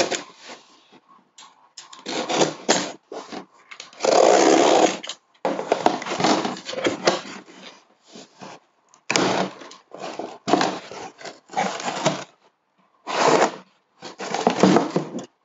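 A box cutter slitting the packing tape on a cardboard shipping box, then the cardboard flaps folded open and crumpled paper packing rustling as a boxed item is lifted out near the end. Irregular bursts of scraping and rustling with short pauses between them.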